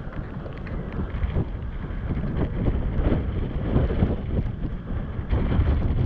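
Wind buffeting the action camera's microphone: a steady, gusty low rumble.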